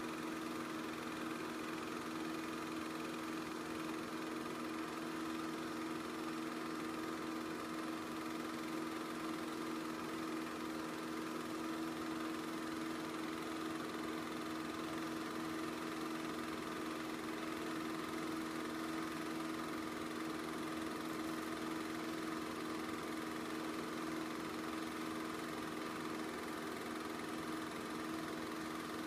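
Chinon 2000GL dual-gauge cine film projector running a film: a steady, even mechanical hum from its motor and film mechanism.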